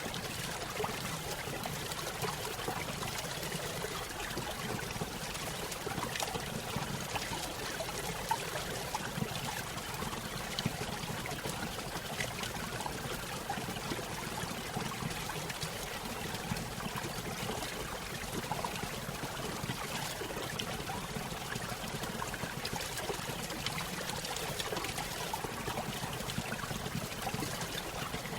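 Small stream spilling over a little waterfall: steady splashing and trickling water, with no pauses.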